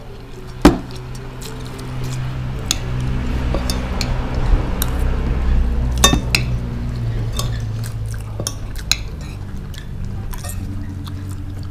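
Metal spoons clinking and scraping on plates and bowls during a meal, with one sharp knock under a second in. Soft background music with low held notes underneath.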